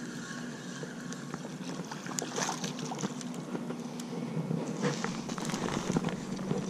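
Fishing reel being cranked with a steady whir while a hooked bass is brought in. In the last two seconds the bass splashes and thrashes in the shallow water at the bank.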